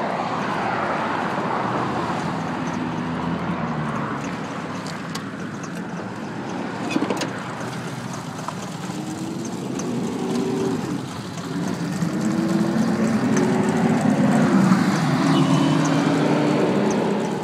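2005 Ford F-150 engine running rough, its speed rising and falling unevenly rather than holding a steady idle. There is a short sharp click about seven seconds in.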